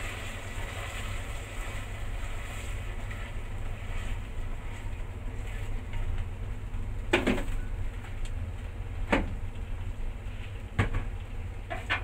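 Food frying in a metal pan on a gas stove: a faint sizzle that fades over the first few seconds above a steady low rumble. Wooden chopsticks knock sharply against the pan four times in the second half.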